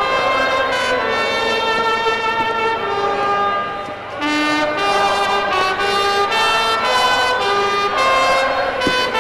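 Brass instruments playing a slow melody in held notes, with a short break between phrases about four seconds in.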